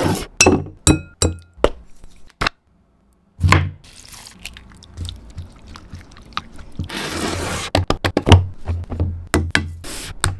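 Close-up kitchen prep sounds. First, glass containers clink as they are set down on a tabletop. Then a gloved hand squishes raw chicken drumsticks in marinade in a glass bowl. About seven seconds in, flour pours with a short rush into a metal pan, and measuring spoons of spice click against it.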